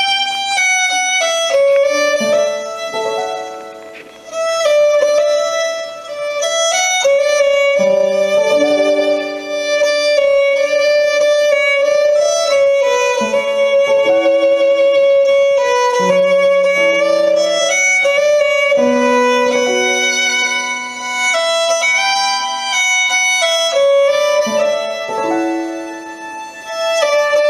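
Background music: a Scottish fiddle tune, with long held notes over a moving melody.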